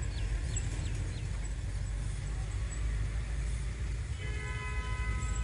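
A distant train horn sounds once for about a second, about four seconds in, over a steady low rumble. A bird chirps four quick falling notes at the start.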